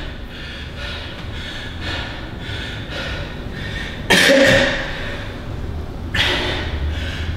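A man breathing hard and catching his breath after an intense round of interval training, with short breaths at first. Then comes a loud gasping exhale about four seconds in and another about six seconds in.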